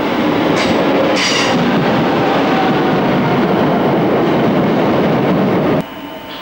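Passenger train pulling into the platform close by: a loud, steady rumble of wheels on rails, with two short high-pitched bursts about half a second and a second in. Near the end the rumble drops off suddenly to a quieter hum with a steady tone.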